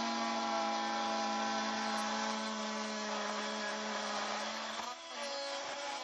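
Oscillating multi-tools plunge-cutting copper pipe, giving a steady, high-pitched buzz with a brief drop about five seconds in.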